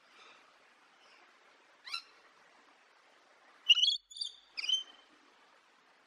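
High-pitched cartoon chipmunk-style chuckle, three quick notes about four seconds in, over faint bird twittering. A single short rising chirp comes about two seconds in.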